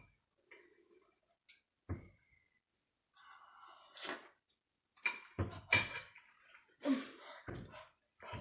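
A metal spoon clinks once against a ceramic bowl, with a short ring. A breathy rush follows, then a run of loud coughing and gasping from a boy who has a mouthful of very hot chilli.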